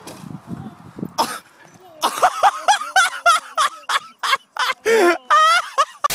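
A brief sharp thump about a second in, then a string of loud, short, high-pitched vocal outbursts from the people on the slope. A hiss of static at the very end.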